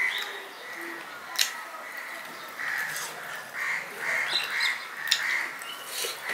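Crows cawing repeatedly in short harsh calls, several in quick succession in the second half. Between them come a few sharp wet clicks of mouth and hand eating rice and fish.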